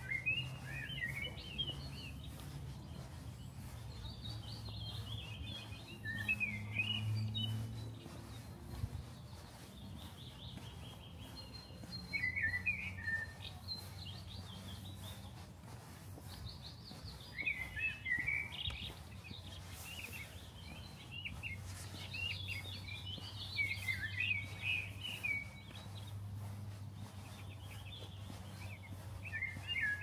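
Songbirds singing in short bursts of quick, high chirping phrases every few seconds, over a steady low hum.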